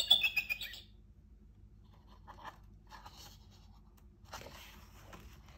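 Recorded eagle call from the sound book's eagle button, played through its small toy speaker: a loud, falling screech that ends about a second in. Soft paper rustles and handling noises from the book follow.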